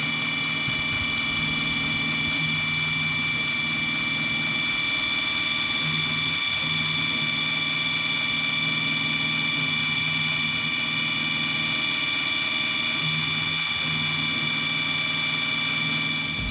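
Milling machine spindle running steadily while a small cutter mills the gap into a cast-iron piston ring blank. It is a steady whine with several high, even tones, and a lower hum swells and fades a few times.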